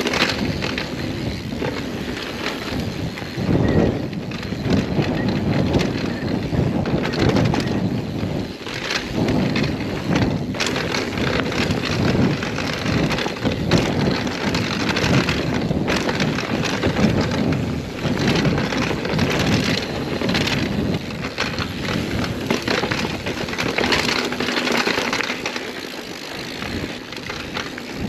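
Mountain bike ridden over a rough, rocky trail: steady tyre noise on rock and gravel, with the bike clattering and rattling over bumps many times a second.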